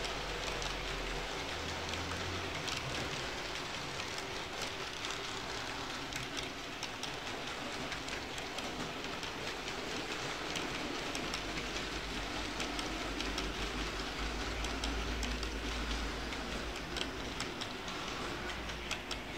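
HO-scale model train coaches rolling along the track, a steady rattling of small wheels with many quick, irregular clicks and a low hum underneath.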